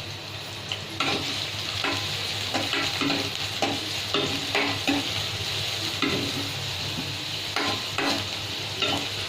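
Chopped onion sizzling in hot oil in a kadhai, with a spoon stirring it and knocking against the pan in repeated strokes that begin about a second in.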